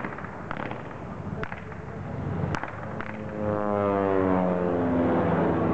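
Military sidecar motorcycle driving past, its engine note falling steadily in pitch as it goes by, starting a little past halfway. Before it, a few scattered sharp cracks.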